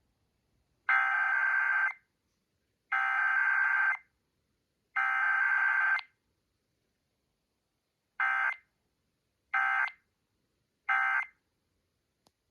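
Emergency Alert System SAME digital data bursts: three one-second header bursts of buzzy warbling tones about a second apart, then, after a two-second gap, three short end-of-message bursts. No attention tone sounds between them, as is usual for a required weekly test.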